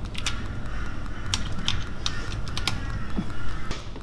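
Light, irregular metallic clicks and clinks of hand tools: a socket and ratchet with an extension being handled under the front of the vehicle to get at a 14 mm bolt.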